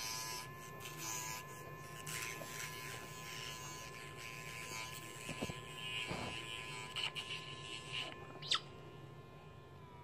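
Small battery-powered pet nail grinder running with a steady high hum as it files an African grey parrot's claws. Its note dips briefly under load, with scratchy grinding against the nail, and a short high squeak comes near the end.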